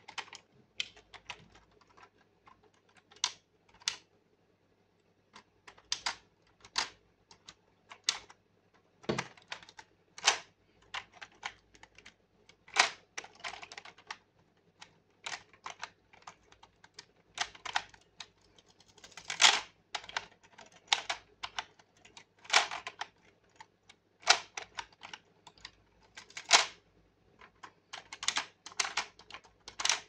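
Irregular plastic clicks and clacks from a DX Fever Slot Raise Buckle toy being handled, with its slot reels turned to new symbols.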